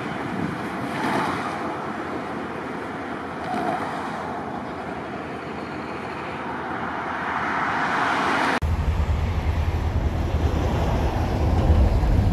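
Steady road traffic noise from passing cars. About eight and a half seconds in it cuts abruptly to a louder, deep low rumble.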